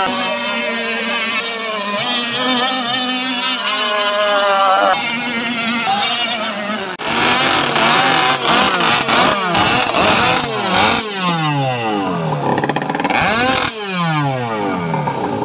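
Music with a wavering sung melody for the first few seconds. Then, from about seven seconds in, the small two-stroke chainsaw/brushcutter engines of gas-powered RC racing boats rev high, several at once, their pitch sweeping repeatedly up and down.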